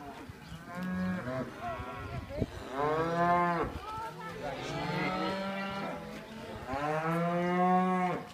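Cattle mooing: about four long, drawn-out moos in turn, rising and falling in pitch, the loudest about three seconds in and near the end.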